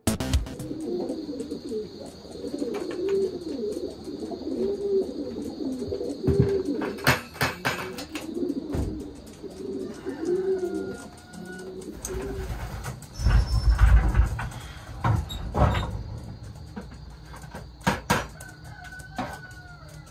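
Racing pigeons cooing over and over through the first half, each coo a short rising-and-falling call. Scattered knocks run throughout, and about two-thirds through there is a louder stretch of low rustling noise.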